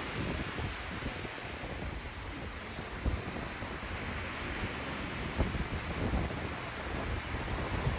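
Small waves washing onto a sandy beach, with gusts of wind buffeting the microphone as a low, uneven rumble.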